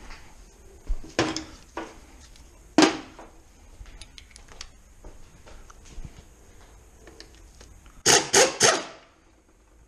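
Metal knocks and clicks of hand tools and bolts while unbolting a gearbox casing: single sharp knocks about a second in, near two and three seconds in, light ticks around four seconds, then a quick run of four sharp strikes about eight seconds in.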